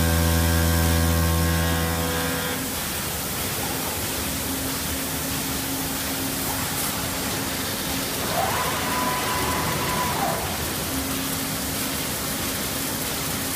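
The spindle motor of a 2004 Intermac Pro CNC stone center runs with a steady hum while wet-cutting a sink opening in a stone countertop, then winds off about two and a half seconds in. A steady hiss of coolant water carries on after it stops, and a brief motor whine rises, holds and falls a little past the middle as the head is moved.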